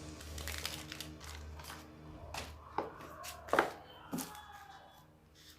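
Phone packaging being handled: rustling with several sharp crackles and clicks, as a new phone is taken out of its wrapping.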